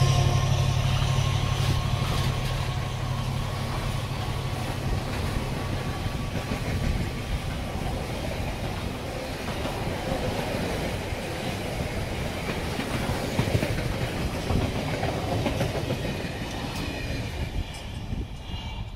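Engineering train of flat wagons loaded with rails rolling past behind a Class 70 diesel locomotive: wheels rolling on the track, with the locomotive's engine hum fading away over the first five seconds or so as it pulls away. The rolling noise dies down near the end as the last wagon passes.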